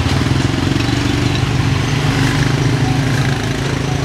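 A small motorbike engine running steadily close by, with street traffic noise behind it.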